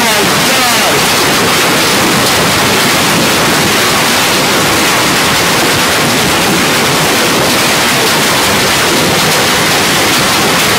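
Hailstorm with heavy rain: hailstones and rain pelting down in a loud, steady, dense hiss of countless impacts.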